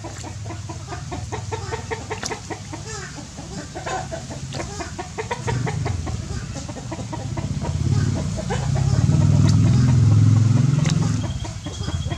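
Many large frogs croaking together in a rapid, pulsing chorus, loudest from about eight to eleven seconds in. A thin, steady high tone comes in near the end.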